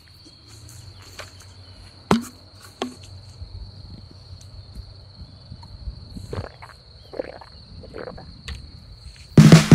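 A cricket chirring in one steady high note, with a few sharp clicks and knocks of handling and movement in the grass, the loudest about two seconds in. Music with a drum beat starts just before the end.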